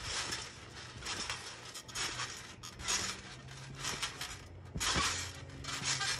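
Someone bouncing on a trampoline: the springs creak and clink with each bounce, in noisy bursts about once a second.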